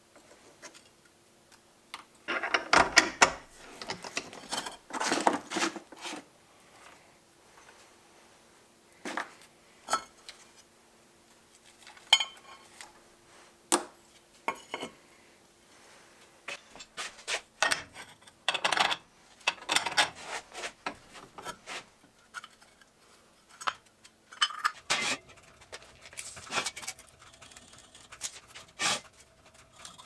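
Irregular clinks, knocks and scrapes of steel workpieces and tools being handled on a steel bench, with a faint steady hum underneath.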